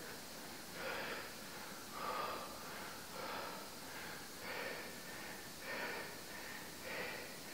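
A man breathing hard in rhythm with sit-ups: six short, forceful breaths, about one a second.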